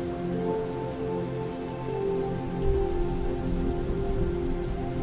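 Steady rainfall with scattered drop ticks, under slow, gentle piano music with long held notes.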